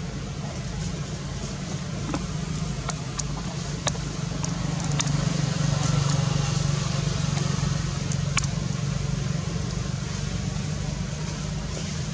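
Low steady hum, like a running motor, that swells for a few seconds in the middle, with a few scattered sharp clicks over it.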